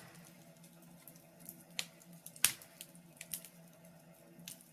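Fireplace crackling: scattered soft pops and clicks over a faint steady hum.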